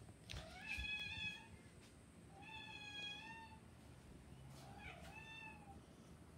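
Domestic cat meowing three times, each meow about a second long, spaced about two seconds apart.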